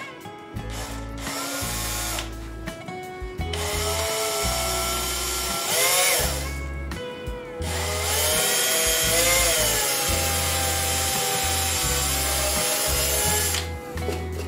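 Cordless drill boring a small hole into the centre of a cedrinho wood disc. It runs in a few bursts, its motor pitch rising and falling with the trigger. The longest run comes near the end and stops shortly before it.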